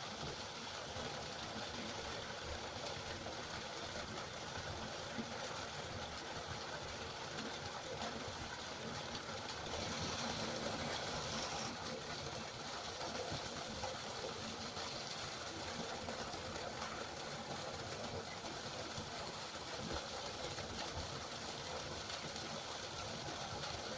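Steady rain falling: an even hiss that goes on without a break.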